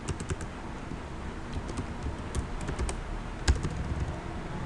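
Computer keyboard keys clicking as someone types in short runs of a few keystrokes with pauses between, one key struck louder a little after three seconds in.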